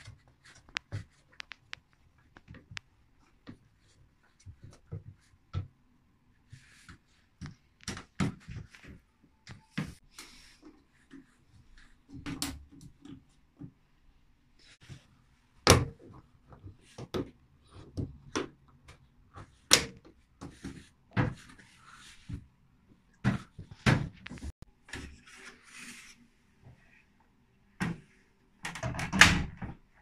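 Irregular clicks, knocks and rubbing as a new rubber door seal is worked onto the drum rim of a Little Swan front-loading washing machine and fastened with pliers. A louder clatter of about a second comes near the end as the washer's door is shut.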